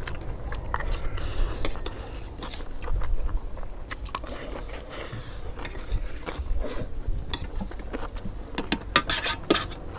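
Metal spoons scraping and clinking against stainless steel trays of fried rice, with chewing, as two people eat fast. The clinks come scattered, then in a quick run about nine seconds in.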